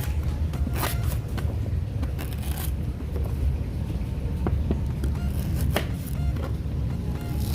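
Irregular knocks and scraping from preparing food by hand, over a steady low hum.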